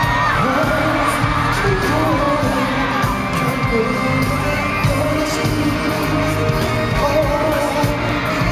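Live pop music played loud through a concert sound system: a male voice singing over a steady bass beat, with fans screaming.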